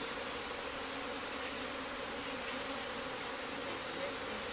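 Honey bees buzzing in the air around an opened hive: a steady, even drone from many bees at once, the colony stirred up by the hive being opened.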